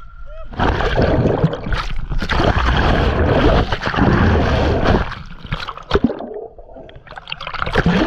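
River water splashing and gurgling around a handheld action camera as it goes under the surface, heard as dense rushing noise that drops away after about five seconds to a quieter stretch with a few sharp knocks, then swells again near the end.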